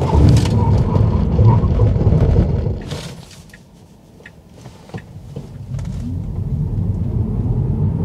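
Road and tyre rumble of a Tesla Model 3 Standard Range Plus on Falken tyres during a full emergency stop from about 100 km/h: the rumble holds, then fades away as the car comes to a standstill about four seconds in. It builds up again as the car accelerates away.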